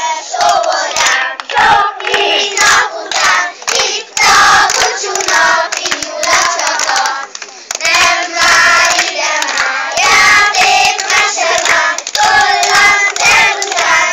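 A group of young children singing a song together while clapping their hands along.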